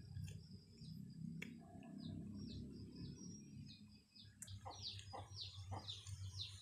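Bird chirping: faint scattered notes, then a quick run of short, falling chirps at about four a second over the last two seconds, above a low background rumble.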